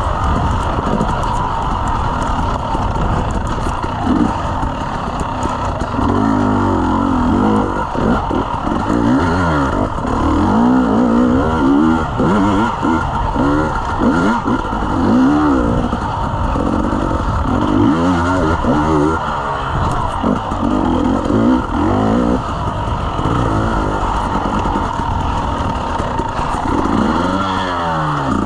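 Dirt bike engine revving up and down again and again as it is ridden along a rough forest trail, its pitch rising and falling every second or two over a steady rushing noise.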